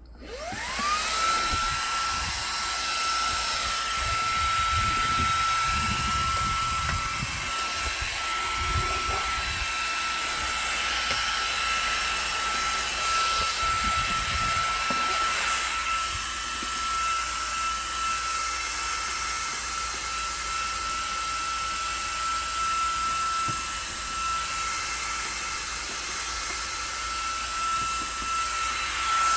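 Xiaomi mini cordless vacuum cleaner switched on: its motor spins up in a rising whine over about a second, then runs with a steady high whine.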